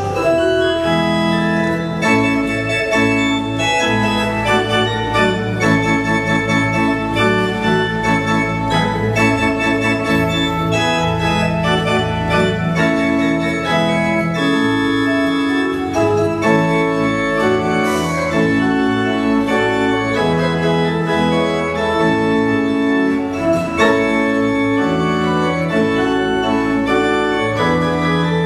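Pipe organ playing full sustained chords over deep bass pedal notes, the chords moving on every second or so, with a stretch of quicker notes around ten seconds in.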